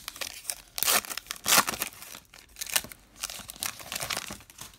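Foil wrapper of a trading card pack being torn open and crinkled by hand: a run of irregular crackling tears and rustles, loudest about a second and a half in.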